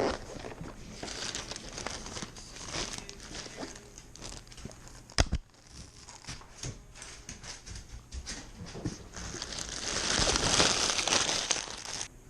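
Close rustling and crinkling with scattered small clicks, a single sharp knock about five seconds in, and louder rustling near the end.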